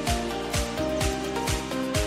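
Background music with a steady beat, about two beats a second, under held melodic notes.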